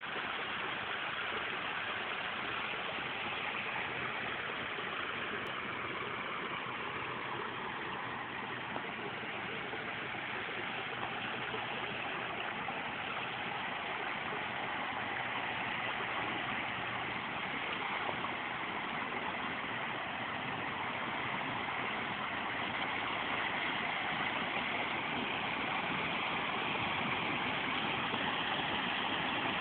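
Water pouring steadily down a built waterfall at full flow, fed by a 13,500 gph pump through two three-inch supply lines.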